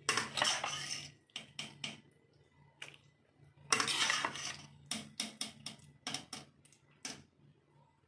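Serving spoon scraping and clinking against a pan and a glass bowl as thick okra curry is ladled across, in a string of short, irregular scrapes and taps.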